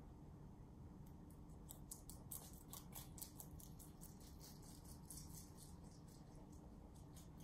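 Rabbit chewing leafy vegetables: a rapid run of faint, crisp crunches that starts about a second in and thins out near the end.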